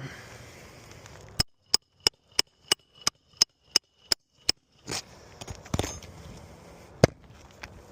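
Nails being driven into asphalt roofing shingles: about ten sharp, ringing strikes at roughly three a second, then scraping on the roof and one more strike near the end.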